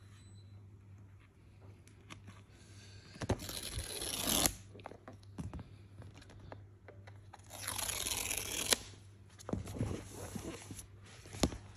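Paper tear strip of an Apple MacBook Pro box being pulled off by its tab: two tearing rips, each about a second long, the first about three seconds in and the second near eight seconds, with small handling clicks of the cardboard between them.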